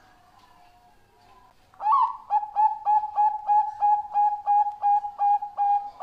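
Zebra dove (Bangkok perkutut) singing. Faint cooing comes first. About two seconds in, a loud phrase begins with a rising note, runs into a quick series of about a dozen short staccato coos at roughly three a second, and ends in a longer held note.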